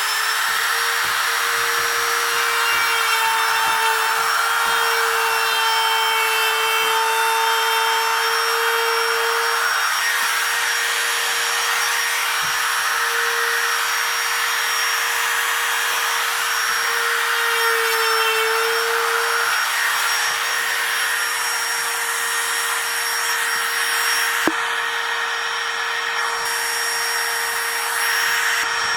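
Router motor running at full speed while its bit cuts a hinge mortise into a wooden door jamb, guided by a plastic template; a steady high whine with brief dips in pitch as the bit bites into the wood, and a sharp click near the end.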